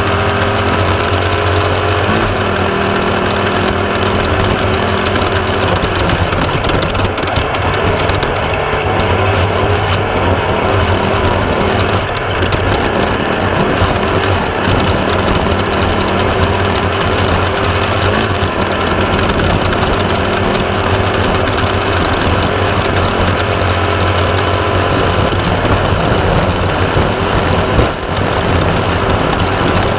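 Class 1/2-1600 off-road race buggy's air-cooled Volkswagen flat-four engine running under load, loud and continuous, with a dense rattle from the car over rough ground.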